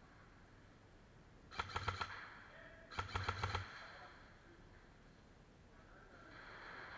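Two short bursts of rapid airsoft gun fire, each a quick string of about half a dozen sharp clicks, the bursts about a second apart.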